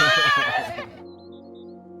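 Excited shouting and cheering voices that cut off suddenly just under a second in, giving way to quieter music with steady held notes.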